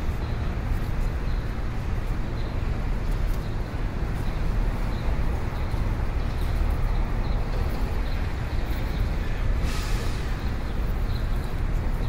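Steady city street noise: a constant low traffic rumble, with a short hiss about ten seconds in.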